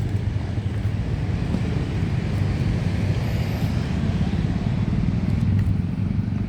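Steady low rumble and hum of motor traffic.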